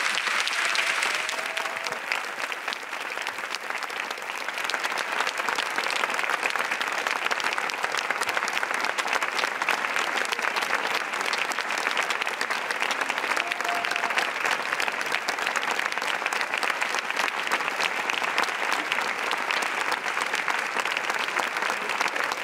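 Large audience applauding, many hands clapping together without a break; the applause eases slightly a couple of seconds in, then picks back up and holds.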